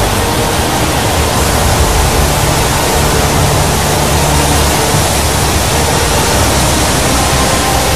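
Floodwater rushing steadily from the Three Gorges Dam's open discharge gates, thick jets pouring into the river below.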